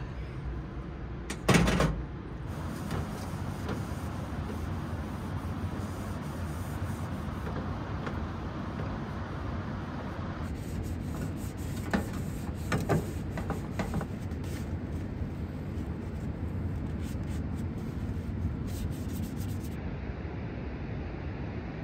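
Camp-kitchen gear being handled and put away, with wiping and rubbing: one loud knock about a second and a half in and a few sharp clicks and clatters around twelve to fourteen seconds in, over a steady low background noise.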